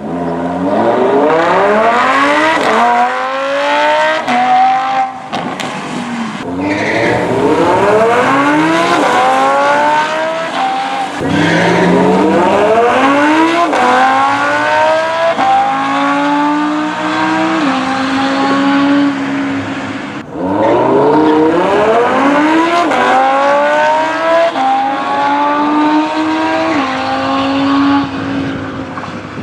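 Lamborghini Huracán Spyder's V10 accelerating hard four times in a row. Each run climbs in pitch through several quick upshifts, the note dropping briefly at each gear change. A steadier held note comes around the middle.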